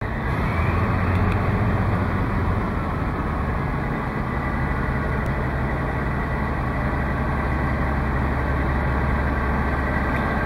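BDZ series 77 narrow-gauge diesel locomotive's engine running with a steady low hum, its pitch shifting about four seconds in.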